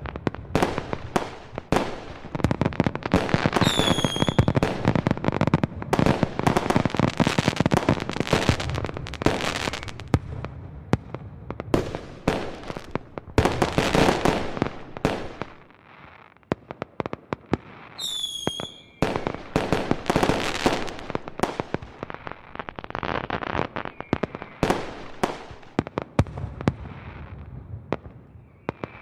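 Fireworks going off: rapid bangs and dense crackling, with a falling whistle about four seconds in and another about eighteen seconds in. The barrage thins out briefly about halfway through, then picks up again and fades near the end.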